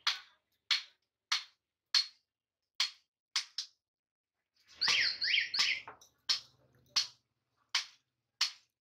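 Hand hammer striking a red-hot steel chopper blade on an anvil while it is forged, in sharp, regular blows about every two-thirds of a second, with a quicker run of blows about halfway through.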